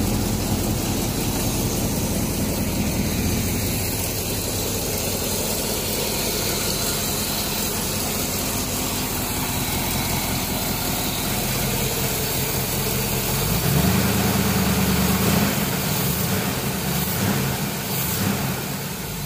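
1967 car's carbureted V8 idling steadily through its exhaust. About 14 seconds in the engine speed rises briefly as the throttle is opened at the carburetor linkage, and it rises again for a moment near the end.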